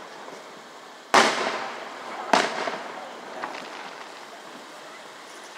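Aerial firework shells bursting: a loud bang about a second in, a second bang just over a second later, and a faint pop near the middle, each trailing off in a fading echo.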